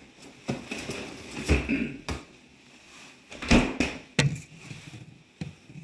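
Irregular knocks and clicks of hard objects being handled and set down, about seven in all. The loudest come about a second and a half and three and a half seconds in.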